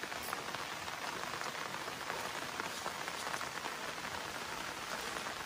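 Steady rain falling on the river surface, an even patter of drops that runs without a break.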